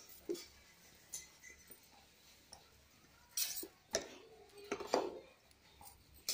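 Cloth doormat rustling as it is lifted and turned over by hand, with a few light clinks of glass bangles. The loudest rustles come about halfway through and again a second or so later.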